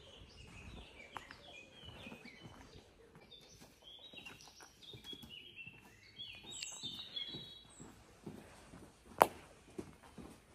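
Small birds chirping and singing in quick short phrases, with soft footsteps on a path. A single sharp click about nine seconds in is the loudest sound.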